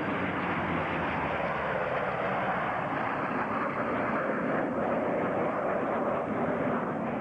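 Steady roar of a low formation flypast of Navy jets, an F-14 Tomcat and an F/A-18 Hornet, flying with a piston-engined F4U Corsair.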